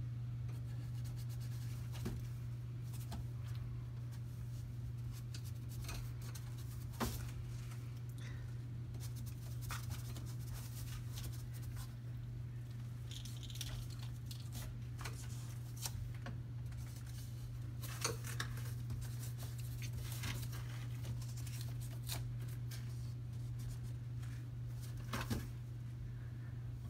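Scattered light scratches and clicks as a Himalayan cat and a person's hand play on a white wire closet shelf, the sharpest ones about 7, 18 and 25 seconds in. A steady low hum runs underneath.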